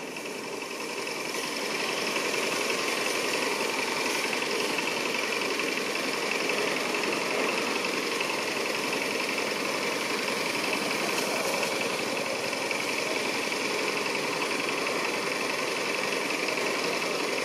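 A steady, dense buzzing drone with no pauses, bright and high in pitch with little low end.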